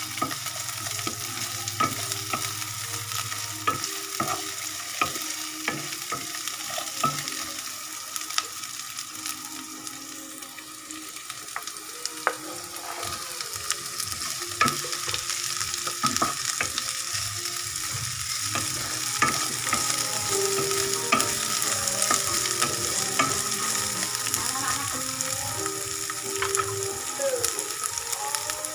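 Sliced shallots, garlic and red pepper sizzling in a nonstick wok, stirred with a wooden spoon that clicks and scrapes against the pan. The sizzle grows louder in the second half.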